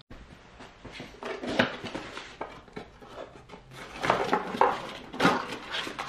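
A plastic smoke detector head and mounting base are handled and lifted out of a cardboard box: rustling with irregular clicks and light clatters.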